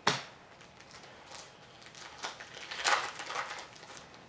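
Upper Deck hockey trading cards handled and flipped through by hand: a sharp snap right at the start, then scattered brief flicks and rustles, loudest in a short burst about three seconds in.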